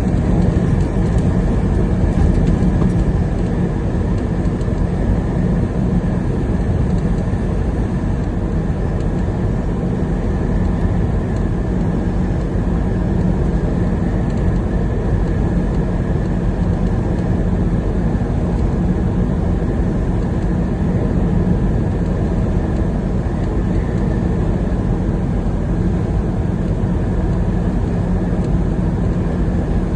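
Truck driving along, its engine and road noise making a steady, unbroken low drone with a constant hum.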